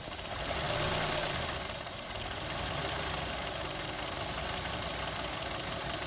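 2002 Honda CR-V's 2.4-litre inline-four idling roughly, with the intake air temperature sensor unplugged. The sound swells for about a second near the start, then settles into a steady, uneven idle.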